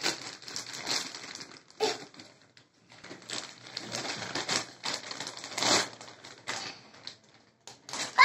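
Gift-wrapping paper crinkling and tearing as it is pulled off a cardboard box, followed by the cardboard box flaps being opened, in irregular bursts of rustling with short pauses.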